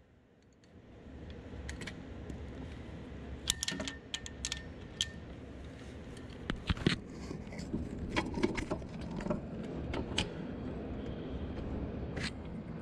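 Irregular metallic clicks and clinks of a socket wrench and extension being fitted onto and worked on cylinder head bolts, over a low steady rumble.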